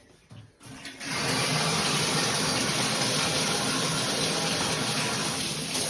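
Shower turned on: a few faint knocks, then about a second in water bursts from a new handheld shower head into a strong, steady spray hiss.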